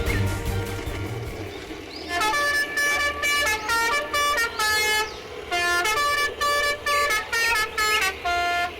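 A run of short horn toots, about fifteen in a row at changing pitches, played like a little tune, starting about two seconds in after a fading rumble of music.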